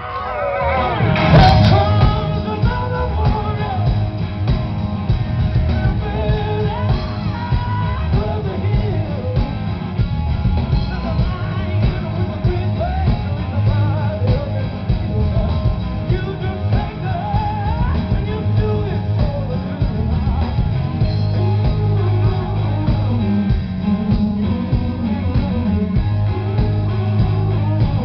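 Rock band playing live: electric guitars, bass and drum kit with a male singer. The full band comes in with a loud hit about a second in. It is recorded from within the crowd.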